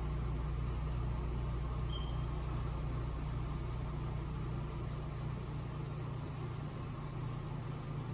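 A steady low hum, its deepest part thinning out about six seconds in.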